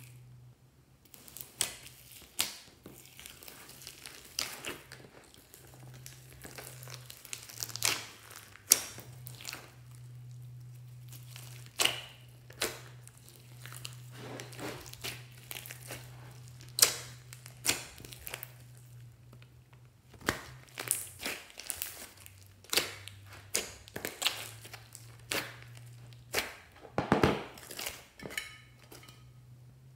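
Slime being squished and stretched by hand, giving irregular sticky pops and crackles, some sharper than others.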